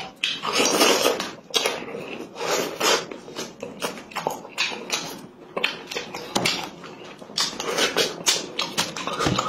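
Close-miked eating of chicken off the bone: wet lip smacks, sucking and chewing, coming as a quick irregular run of clicks with short hissy slurps in between.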